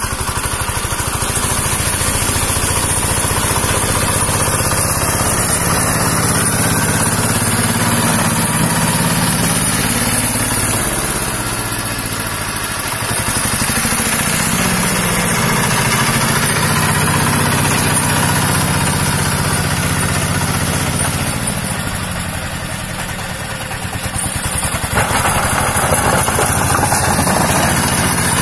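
Rusich T-12 mini tractor's single-cylinder diesel engine running as it pushes snow with a front blade. It eases off twice, about midway and a little before the end, and picks up again, louder in the last few seconds.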